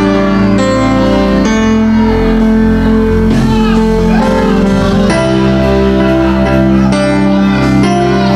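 Soft instrumental worship music between songs: sustained chords over an electric bass guitar, the chord and bass note changing twice.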